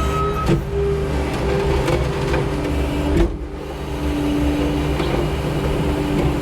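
New Holland L318 skid steer running under work, its engine and hydraulics giving a steady drone with held tones. A clunk comes about three seconds in, after which the main note settles lower.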